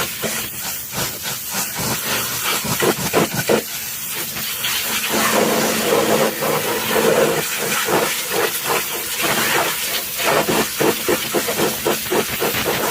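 High-pressure washer jet spraying water against a mud-covered truck, a continuous hiss that surges and dips rapidly as the jet sweeps across surfaces.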